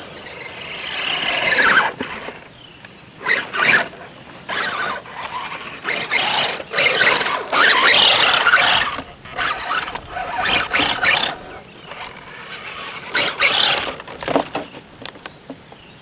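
Axial radio-controlled Jeep crawler's brushless electric motor whining in repeated short, irregular throttle bursts, with one longer run in the middle.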